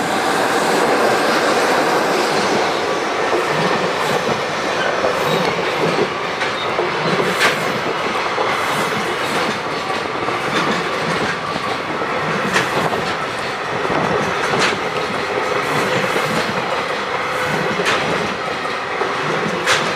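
Freight train rolling past, its wheels clacking steadily over the rail joints with a few sharp metallic clicks.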